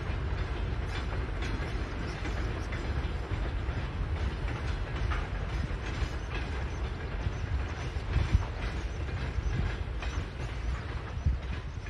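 Train wheels running over the rails: a steady low rumble with irregular knocks as the wheels pass rail joints, two louder knocks in the second half.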